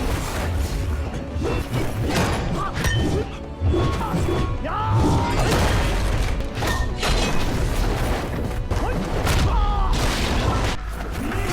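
Martial-arts film fight soundtrack: a music score under repeated sharp hits, thuds and crashes.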